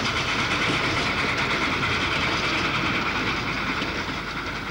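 Narrow-gauge steam train running past, a steady rolling rattle of wheels and coaches on the track that slowly grows fainter near the end.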